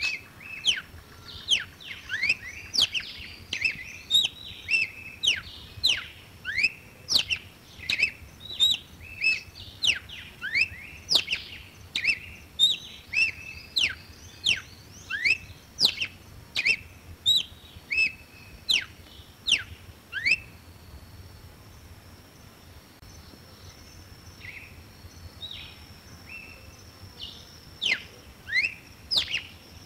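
Red-cowled cardinal singing: a fast series of sharp whistled notes, many of them sweeping steeply down in pitch, about two a second. The song breaks off about two-thirds of the way through and starts again near the end.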